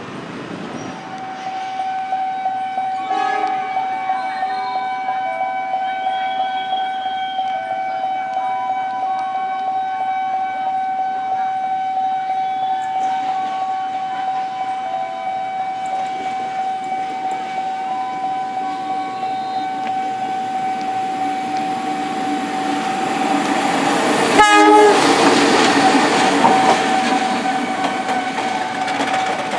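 Nippon Signal railroad crossing siren sounding at its faster tempo, a steady alarm tone with other tones coming and going. A train rushes and clatters past from a little over three-quarters of the way in, loudest just after that.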